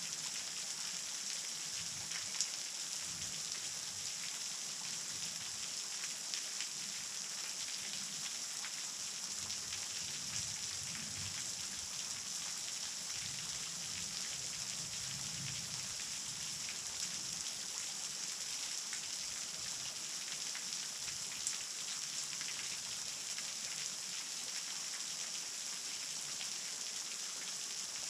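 Small waterfall at low flow: a thin fall of water splashing onto rock, a steady high hiss with faint scattered drip-like ticks.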